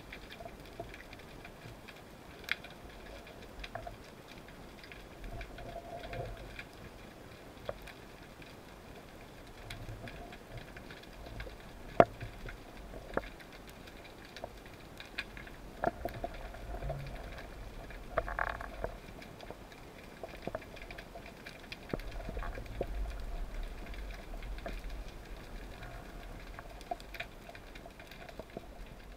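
Underwater ambience heard through the diver's camera: scattered sharp clicks and crackles over a faint low rumble, with one much louder click about twelve seconds in.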